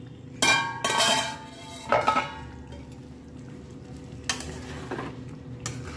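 Metal cookware clanking with a ringing tail, three times in the first two seconds or so, then a spoon stirring thick paneer gravy in an aluminium kadhai with a few soft scrapes against the pan.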